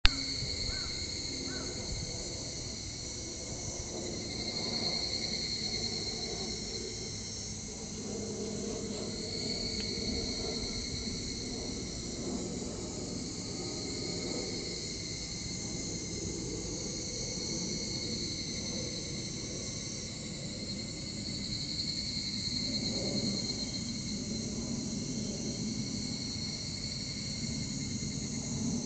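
Insects shrilling steadily at a high, fixed pitch, swelling and fading every several seconds, over a low rumble of outdoor background noise.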